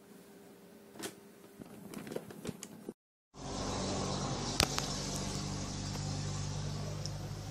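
Faint rustles and clicks, then, after a brief dropout, a steady hum with a hiss and a single sharp click about a second after it starts.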